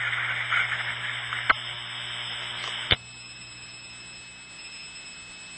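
Hiss and hum of an old telephone line on a recorded call. There is a faint click about a second and a half in and a sharper click near three seconds, after which the line noise drops lower.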